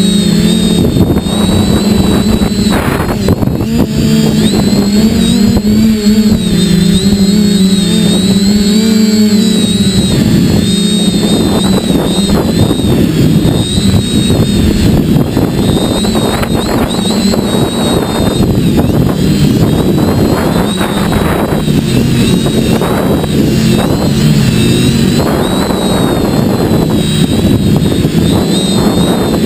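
Multirotor drone's motors and propellers whining and humming, picked up by its own onboard camera, the pitch wavering a little with throttle. From about a third of the way in, a rough rushing noise, wind and prop wash on the microphone, rises under the hum.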